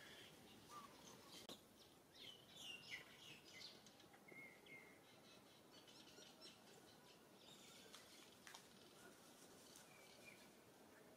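Faint bird chirps: scattered short, high calls over a quiet outdoor background hiss.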